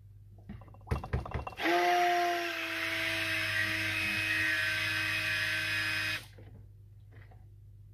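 Stick blender running in a jug of raw soap batter, blending in neon colour, for about four seconds: a steady motor whine that settles a little lower just after it starts, then cuts off. A few light knocks come just before it starts.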